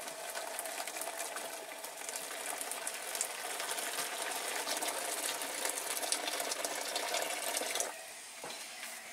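Boiling water poured from a kettle in a steady stream into a plastic tub, splashing as it fills; the pour stops near the end.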